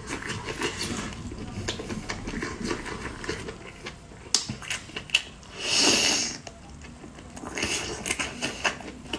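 Close-miked eating of braised octopus tentacle: wet chewing and smacking with many small irregular mouth clicks, and a short louder hiss about six seconds in.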